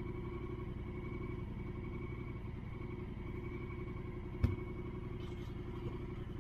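Off-road vehicle engine running steadily at low revs, with one sharp click about four and a half seconds in.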